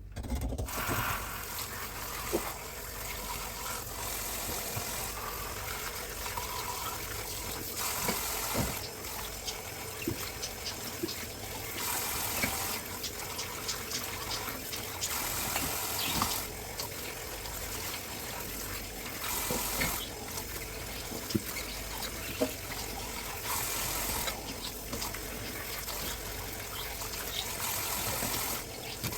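Tap water running into a kitchen sink during dishwashing, with dishes giving short clinks and knocks now and then. The water gets louder for a second or so several times, as when the stream strikes a dish being rinsed.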